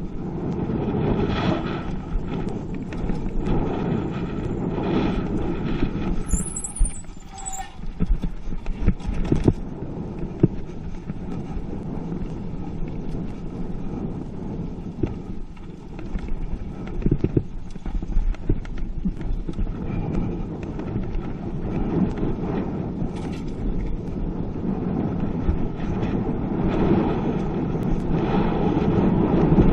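Mountain bike riding fast down a dirt trail: a steady rumble of tyres on dirt and buffeting, with frequent knocks and rattles of the bike going over bumps, and a brief high squeal about a quarter of the way in.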